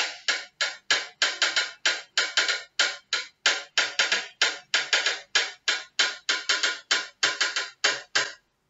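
Electronic drum loop playing a steady rhythm of short, sharp hits, about three to four a second, that stops suddenly near the end.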